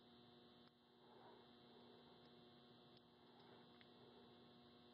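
Near silence: a faint steady electrical hum with a few faint ticks.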